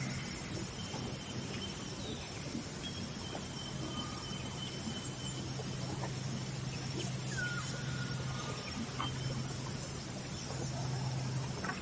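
Steady outdoor ambience with a low continuous hum and a few faint, short bird calls and whistles over it.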